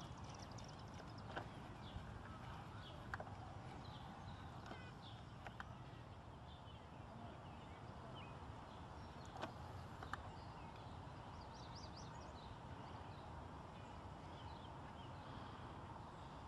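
Red-breasted nuthatch pecking at tree bark: about six faint sharp taps at irregular intervals, over a quiet outdoor background with faint, scattered high bird chirps.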